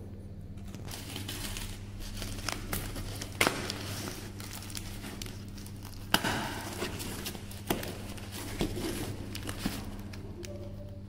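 Plastic packing tape being picked at and peeled off a cardboard shipping box: irregular crackling and crinkling with a few sharp snaps, over a steady low hum.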